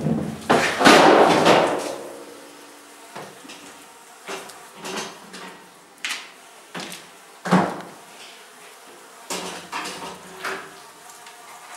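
Irregular knocks and scrapes of a hand uncapping tool working wax cappings off wooden honeycomb frames during honey extraction. The loudest clatter comes in the first second or two, then separate short knocks follow every half second to a second.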